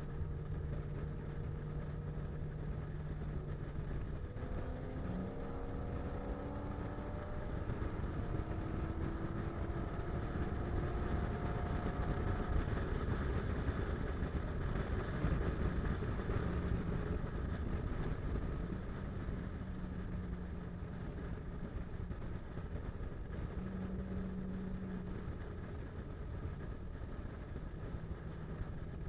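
Car driving at highway speed: steady engine and tyre-on-road rumble, with an engine tone rising for several seconds about a quarter of the way in.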